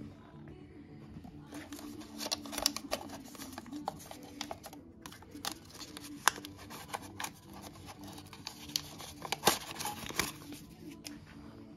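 Hands handling a 1/14-scale RC hydraulic wheel loader model: a run of sharp clicks, taps and light scrapes of its metal and plastic parts, loudest twice, over a faint steady hum.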